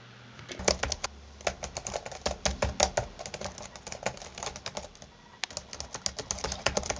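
Typing on a computer keyboard: quick, irregular keystrokes with a pause of about a second near the middle.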